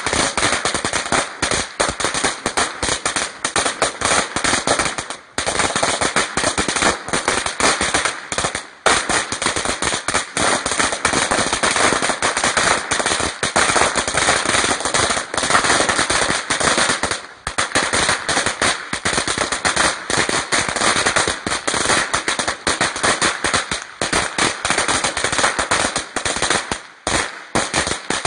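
A string of firecrackers going off in a rapid, continuous crackle of loud pops, with brief breaks about five, nine and seventeen seconds in and again near the end.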